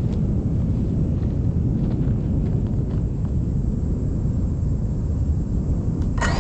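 Steady low rumbling noise with no clear tone, picked up by an FPV drone's camera resting on the ground. Near the end a rising whine starts as the drone's motors spin up.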